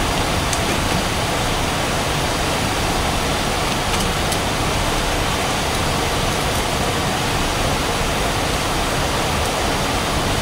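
Loud steady background noise, an even rush without pitch or rhythm, with a few faint small clicks.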